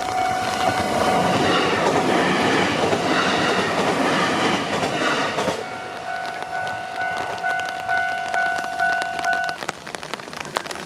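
A train passes through a Japanese level crossing with a loud rush of wheels on rail lasting about five seconds. The crossing's warning bell rings steadily throughout and stops near the end.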